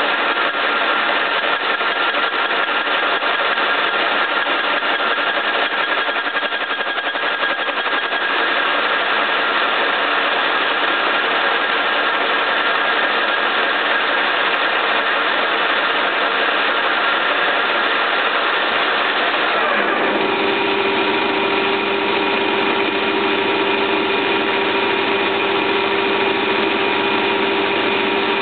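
1K62 lathe running steadily at about 300 RPM, its gearbox whining while a carbide cutter insert machines a workpiece mounted on the faceplate. About two-thirds of the way through, the higher whine slides down in pitch and a lower steady hum sets in.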